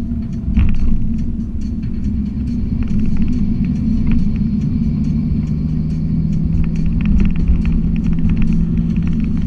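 Car driving, heard from inside the cabin: a steady low rumble of road and engine, with a steady hum coming in about halfway through and scattered light clicks or rattles.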